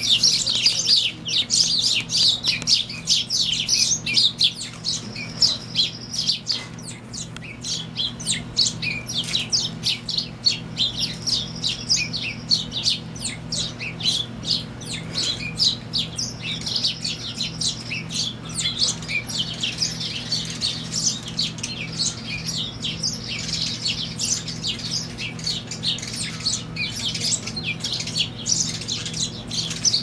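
A group of house sparrows chirping rapidly and without a break, many short, sharp chirps overlapping, as males flutter and display around one another in spring courtship. A steady low hum runs underneath.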